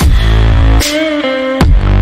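Electronic music with a heavy bass and stepping synth notes, cut through by two sharp sweeping hits, one a little under a second in and one near the end.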